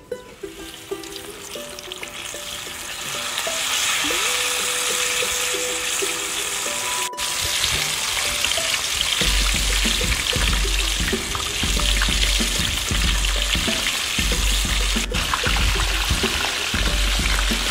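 A whole bunch of bananas deep-frying in a wok of hot oil, with hot oil ladled over them: a dense crackling sizzle that builds over the first few seconds and then holds steady. Faint plucked-string music plays underneath.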